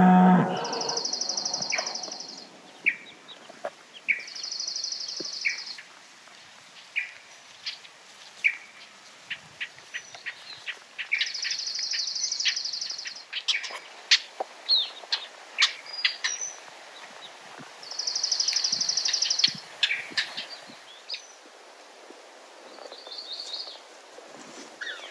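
Open meadow ambience: a cow's moo tails off at the very start, then small birds call with four high buzzy trills, each about a second and a half long, among scattered short chirps and clicks.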